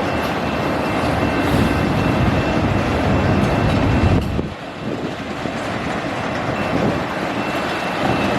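Autorack freight train rolling past: a loud, steady rumble of wheels on rail, easing briefly about halfway through.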